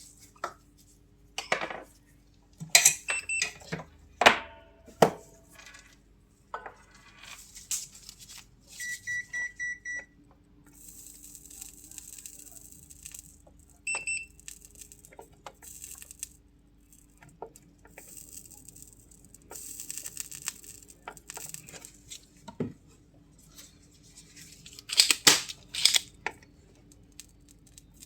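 Tools and parts being handled at an electronics repair bench: scattered clicks and knocks, a run of five short electronic beeps about nine seconds in, a brief beep near fourteen seconds, and two stretches of hiss.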